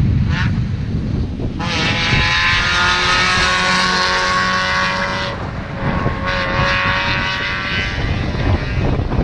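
A race car's engine at high revs as it climbs past on a paved mountain road. The engine note cuts briefly about five seconds in, then picks up again and fades near the end. Wind buffets the microphone throughout.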